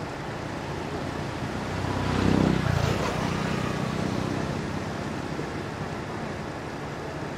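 A motor vehicle passing: its low engine and road noise swells to a peak a little over two seconds in and fades over the next two seconds, over a steady background hum.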